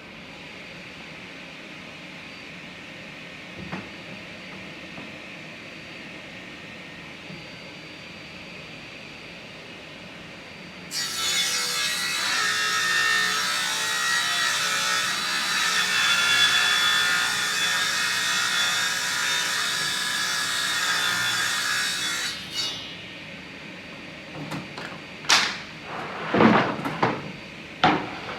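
Power saw cutting through a wooden board: a steady running hum, then about eleven seconds of loud cutting noise that stops abruptly. Near the end, several sharp knocks as boards are handled.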